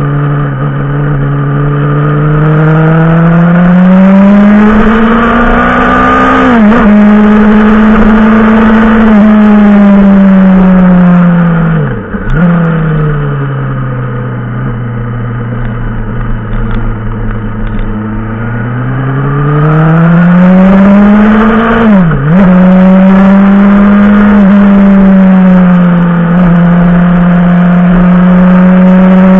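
Yamaha motorcycle engine pulling under load on a climb, revs rising and holding, with brief sharp dips in revs about seven seconds in and again near the end. Around twelve seconds in the revs drop off and fall slowly while the bike eases, then climb back up from about nineteen seconds.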